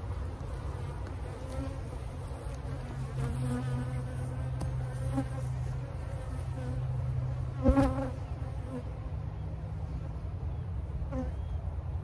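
Honey bees buzzing around an opened hive box in a steady hum, with single bees droning past close by now and then.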